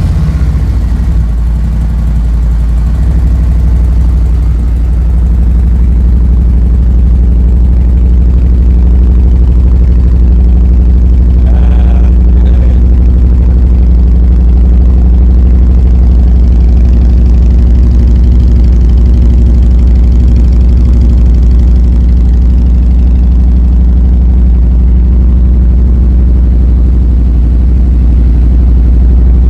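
Motorcycle V-twin idling loud and steady through newly fitted Vance & Hines 4.5-inch High Output slip-on mufflers, settling just after being started.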